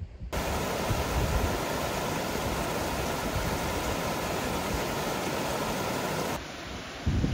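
Steady rushing of running water, an even hiss that starts abruptly just after the beginning and cuts off abruptly about six seconds later. Wind buffets the microphone at the very end.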